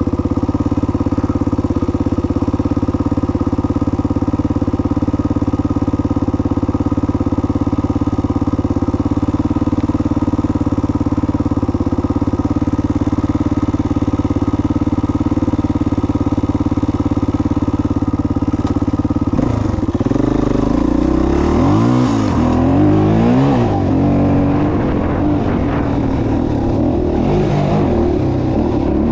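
Engine running at a steady speed for most of the stretch, then revving repeatedly near the end, its pitch rising and falling several times.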